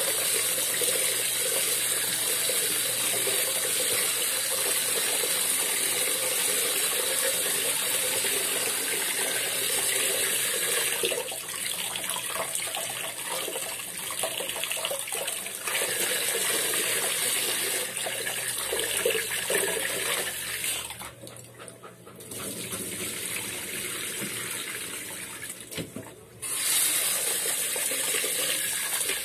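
Kitchen tap running into a pot of rice in a stainless steel sink while a hand swishes and rubs the grains to wash them. The water sound weakens and cuts out briefly twice in the second half, then returns at full strength.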